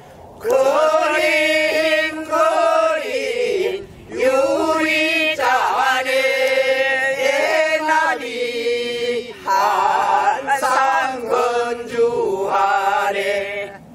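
Several voices, men's and a woman's, singing a Korean folk song together, unaccompanied, in long drawn-out phrases with short breaks between them.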